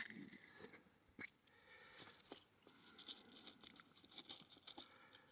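Faint handling sounds of a Colt Paterson replica revolver: scattered small metal clicks and scrapes, with one sharper click about a second in.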